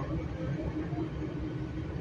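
Commuter train's ride noise heard from inside a passenger coach: a steady low rumble of the wheels running on the rails at speed, with a faint steady hum above it.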